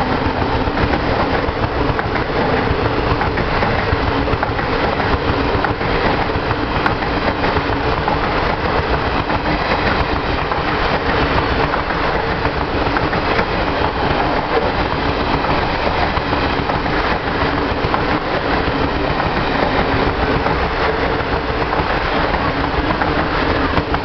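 Passenger coaches of the Darjeeling Mail running past at speed: a loud, steady rumble of wheels on the rails.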